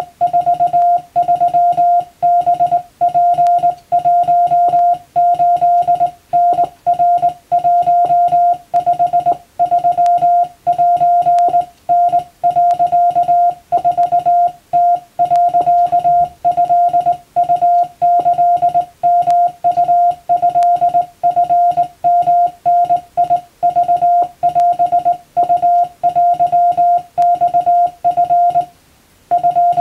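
Hand-keyed Morse code (CW) in Japanese wabun code: a single steady mid-pitched beep switched on and off in dots and dashes, with a short pause near the end.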